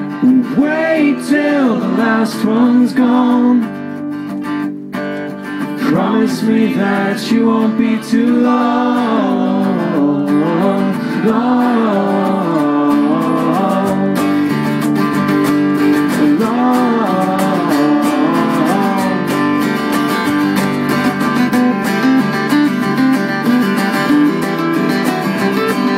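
Live acoustic band: acoustic guitars strummed with a bass guitar, with men singing a melody over the first half, then a stretch of strumming without the voices.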